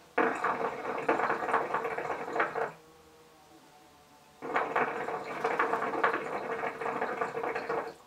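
Hookah water bubbling in the base as the hose is drawn on: two long pulls, the first about two and a half seconds and the second about three and a half, with a short pause between.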